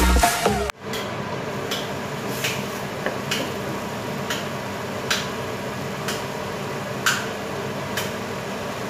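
Dance music cuts off just under a second in. Then a wooden spatula stirs diced carrots and sweet potato in a stainless steel pot, with irregular knocks against the pot roughly once a second over a steady hiss.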